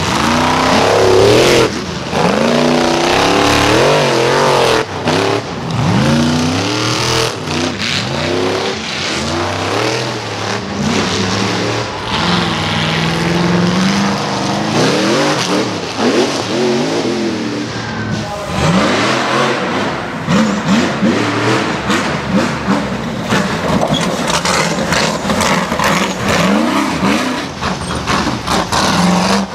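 Rock bouncer buggy engines revving hard in repeated throttle bursts, the pitch rising and falling with each burst, with frequent sharp knocks.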